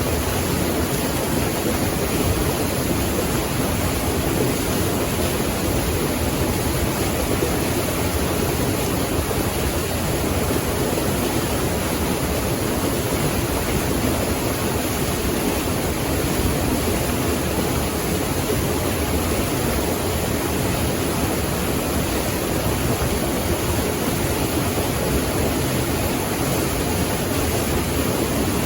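Water rushing steadily, an even, unbroken sound with no change in level.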